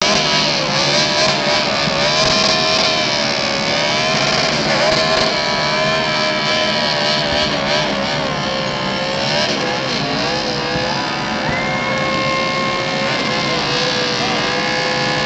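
NASCAR stock car's V8 engine revving hard in a burnout, its rear tyres spinning and smoking; the pitch swings up and down through the first two-thirds, then holds steadier near the end.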